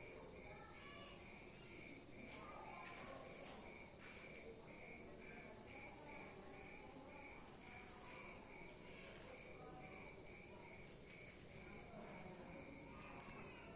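Faint insect chirping: a high, even chirp repeating about two or three times a second, typical of a cricket.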